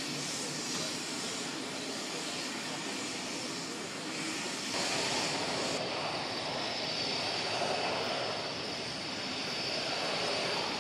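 Jet engine noise, first from a JAS-39 Gripen's single engine close by. About five seconds in it changes abruptly to the twin RB199 turbofans of a Tornado rolling on the runway, with a steady high whine over the rush.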